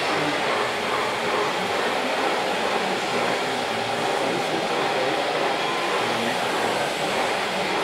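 Steady whirring noise of radio-controlled model construction machinery at work, with the model excavator's hydraulics running as it digs.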